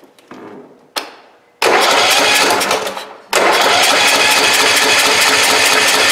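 Kohler engine of a Dixon lawn tractor being started with the key: a click, a burst of cranking for about a second and a half, then a second, longer try from about three seconds in that keeps going with a fast even pulse. This is its first start after the carburetor rebuild meant to cure its fluctuating RPMs.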